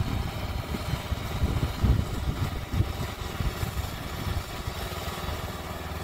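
Woodland Mills HM126 portable sawmill's gas engine running steadily, with irregular low thumps in the first few seconds.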